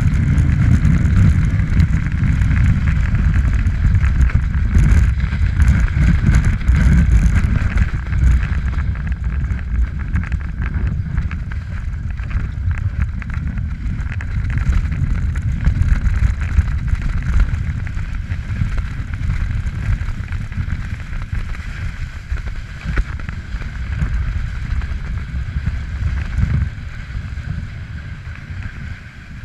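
Wind buffeting an action camera's microphone as a snowboard rides down a groomed piste, with the board scraping and hissing over the packed snow. It is loudest in the first several seconds and dies down near the end.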